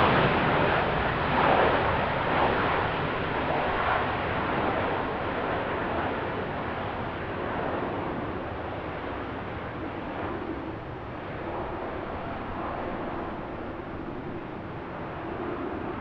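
Jet airliner engines, a broad rushing noise that is loudest at the start and slowly fades as the aircraft moves away, leaving a faint steady hum near the end.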